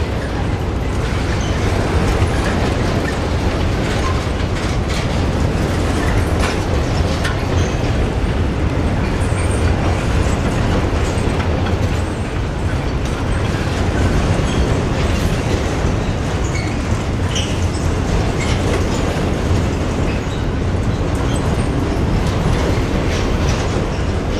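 Freight train of pulp boxcars rolling past: a steady rumble of steel wheels on the rails with scattered clicks.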